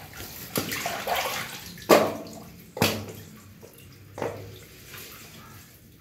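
Sewage water splashing and sloshing as a worker moves and handles debris at the bottom of a manhole, with a few sudden splashes, the loudest about two seconds in.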